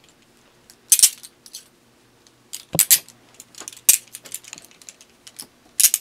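Steel chain handcuffs clinking and clicking as they are turned on the wrists to line up the cylinders. A few sharp metallic clicks come about a second in, near three seconds, in a cluster near four seconds, and twice near the end.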